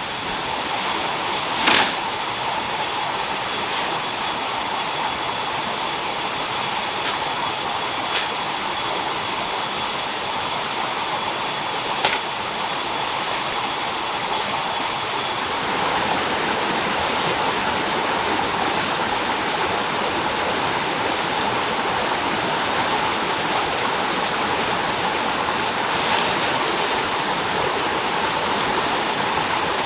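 Steady rushing of a forest stream, with a few sharp snaps as plant stems and leaves are broken off by hand, the loudest about two seconds in and again near the middle.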